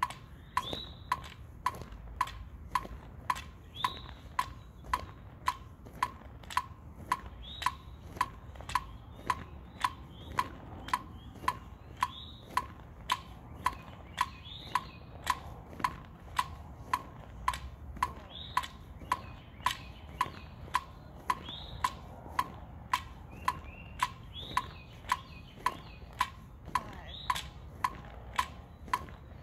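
Metronome clicking at a steady tempo, a little over two clicks a second, with birds chirping now and then.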